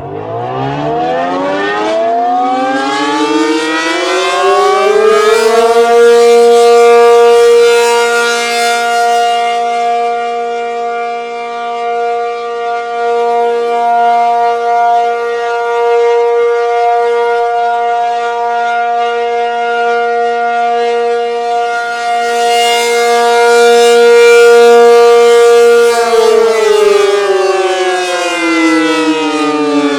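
ACA Penetrator 50 (P-50) tornado siren sounding the steady alert signal. The rotor winds up over about six seconds to a steady multi-pitched tone, which swells and fades in loudness as the rotating head turns, then begins to wind down near the end.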